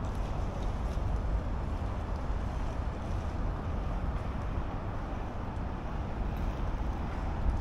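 Steady city street noise: a low traffic rumble mixed with wind on the microphone.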